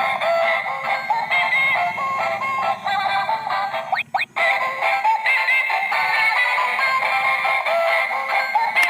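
Battery-operated egg-laying toy hen playing its electronic tune, a bright, chirpy melody of short stepped notes that cuts out briefly twice about four seconds in.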